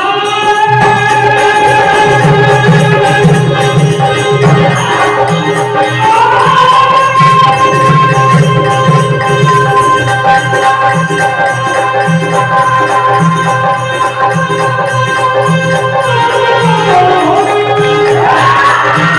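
Live Indian devotional bhajan music: a long melodic line of held notes that glide up and down between pitches over a steady hand-drum beat.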